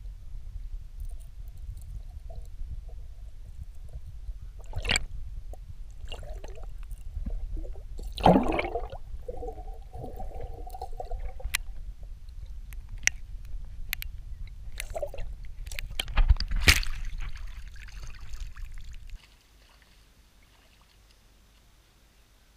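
Muffled underwater sound from a submerged camera: a steady low rumble broken by scattered sharp clicks and knocks and some gurgling, loudest about eight seconds in. The rumble cuts off suddenly about nineteen seconds in, leaving near silence.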